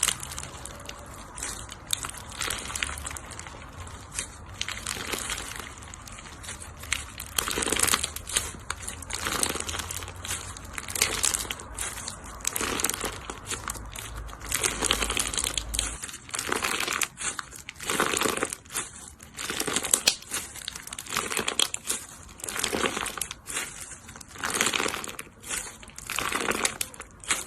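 Crunchy slime being squashed and pressed, crackling and crinkling in a run of irregular squeezes that come quicker and louder in the second half.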